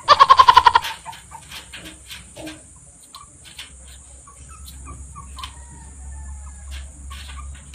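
Backyard chickens clucking in short, scattered calls. The first second holds a loud, rapid run of high pitched pulses, the loudest thing here.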